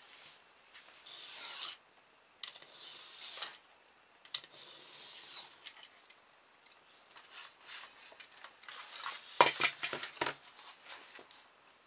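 Craft knife drawn along a steel rule through 5 mm polystyrene foam pizza trays, sped up fivefold: several scratchy, high-pitched cutting strokes about a second long each, then a quick cluster of knocks and clicks near the end as the rule and foam are handled.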